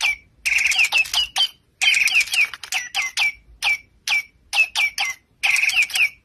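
Toy bird chirping: short notes that drop sharply in pitch, about two a second, and three times a brief buzzy trill followed by a quick run of chirps, the same phrase repeating.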